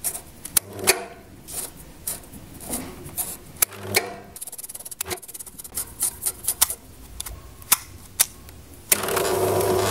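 Sharp, irregular clicks and taps from the adjustment wand working in the limit head of a FAAC tubular roller-shutter motor and from the test-lead switch, as the motor is pulsed in the down direction to set its lower limit. About nine seconds in, a louder steady hum begins.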